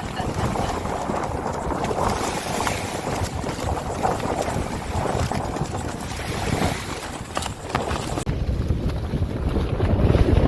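Wind buffeting the microphone over a steady wash of sea noise. About eight seconds in it turns duller and heavier as the high hiss drops away and the low rumble grows.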